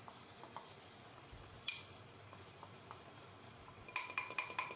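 Soft scraping and light ticks as a wooden spatula scrapes flour out of a ceramic cup into a steel bowl. About four seconds in comes a quick run of knocks, each with a short metallic ring, as the upturned cup is tapped against the steel bowl to shake out the last of the flour.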